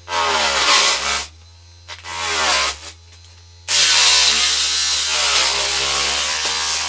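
Small motor of a homemade table saw buzzing, its spinning blade cut from the bottom of a tin can, as clear plastic is fed into it. Three loud rasping cuts: two short ones about a second each, then a long one starting before the halfway point. The motor's pitch dips as it bogs down under each cut.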